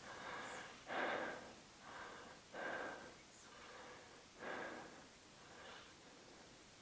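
A person breathing close to the microphone, a soft breath about once a second, in and out.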